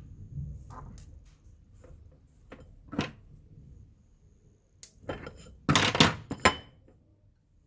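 Knocks and clatter of hard objects such as tools or parts being handled and set down: scattered taps, then a louder burst of clatters about six seconds in.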